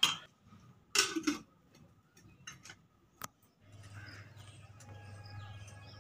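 A few sharp clicks and a short clatter, then from about halfway a low steady hum.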